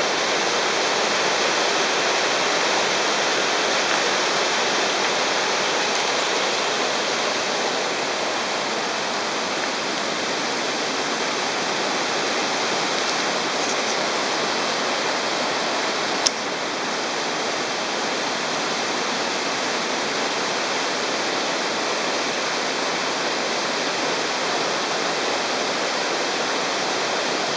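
Steady rush of fast-flowing stream water, an even, unbroken hiss, with one brief click about sixteen seconds in.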